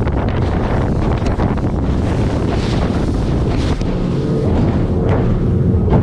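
Heavy wind buffeting the microphone on a Stabicraft 2050 boat running fast through rough, choppy water, with the rush of the hull over the waves and the outboard motor underneath. A few short hisses of spray break through in the middle.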